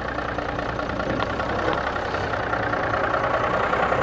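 Diesel engine of a long-abandoned heavy tow truck idling steadily just after being revived, while it builds air pressure for its air brakes.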